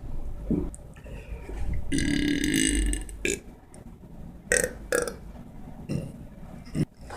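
A man belching on purpose: one long belch of about a second near the middle, with a few short bursts of sound around it.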